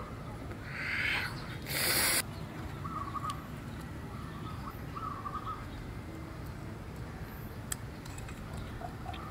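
A bird calling in the background with short, repeated, even-pitched hoots, over a steady low outdoor hum. About two seconds in there is a short, loud scrape, the loudest sound here.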